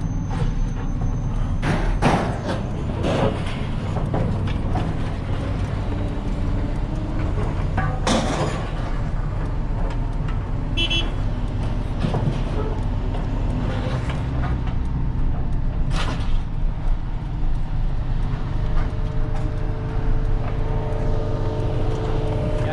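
Truck engine idling steadily, with a few sharp metallic knocks now and then.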